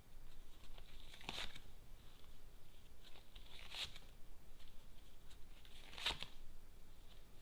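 Lenormand cards being handled and laid down: three short papery swishes, about a second in, near the middle and about six seconds in.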